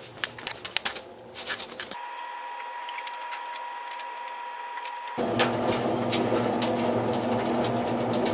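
Knocks and rustles of a camera being handled, then a steady high tone for about three seconds, then a louder steady hum from a running front-loading laundry machine.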